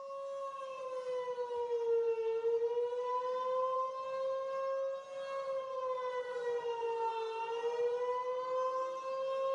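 Air-raid siren wailing on a steady tone, its pitch slowly sagging and rising back twice.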